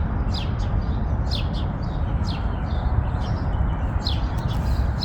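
Small birds chirping: a scattering of short, high, falling chirps, several a second, over a steady low outdoor rumble.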